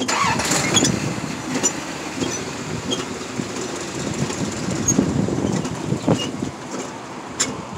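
Dixie Narco 501e vending machine door being unlocked: the key and T-handle lock worked by hand, with irregular metal rattling and sharp clicks.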